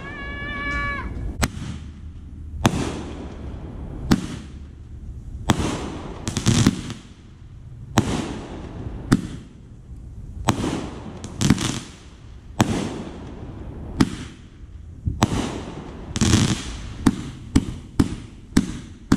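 A consumer aerial firework cake firing shot after shot, one sharp bang about every second or so, each trailing off in echo. There is a short whistling tone just after the start, and the bangs quicken into a rapid string near the end.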